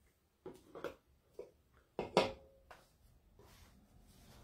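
A few light clicks and knocks from a small jar of craft wax being handled and set on a wooden tabletop, the loudest about two seconds in.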